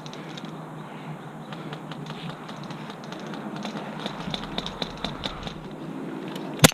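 Scattered light clicks and ticks, then one loud, sharp airsoft gun shot near the end.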